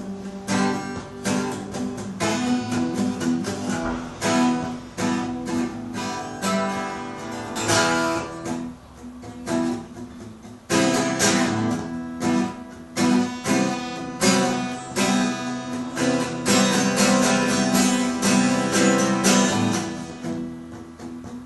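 Cort AD810-12 twelve-string acoustic guitar being strummed. The playing softens about nine seconds in, and loud strumming comes back at about eleven seconds.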